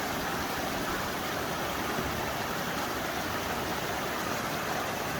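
Creek water rushing in a steady, even flow.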